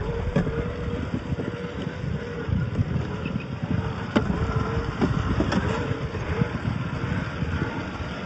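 Traxxas TRX-4 RC crawler driving off-road: its electric motor and drivetrain whine steadily. Irregular clicks and crunches sound over a low rumble from the rough ground.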